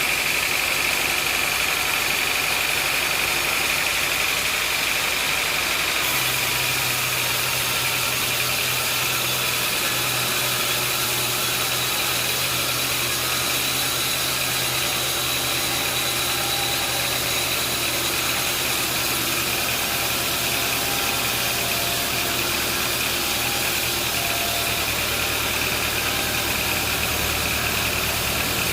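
Engine running steadily at idle, with a low hum that shifts in pitch about six seconds in.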